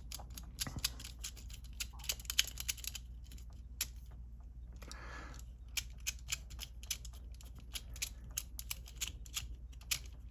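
Number wheels of a Master Lock 875D combination lock being rolled to scramble the combination: quick, irregular clicking as each wheel steps from number to number, with a short pause about three seconds in.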